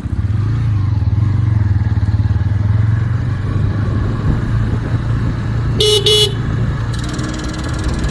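Bajaj N125 motorcycle's engine running steadily, louder from about half a second in, recorded for a strange ticking noise the owner is investigating. A horn sounds two short beeps about six seconds in.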